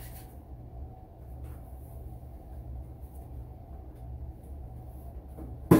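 Steady low hum, with one sharp knock near the end as a computer monitor is handled on its stand.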